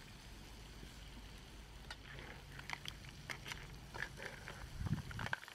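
Snail shells clicking against each other and against a clay pan as they are stirred with a knife: scattered light clicks that come more often in the second half, with a dull knock near the end.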